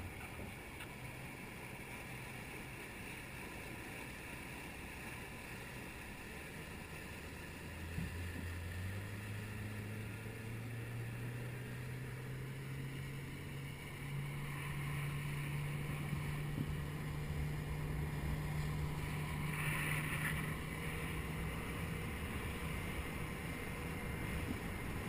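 A small work boat's engine under way with water and wind noise. About eight seconds in the engine picks up, and its pitch climbs in steps as the boat gathers speed.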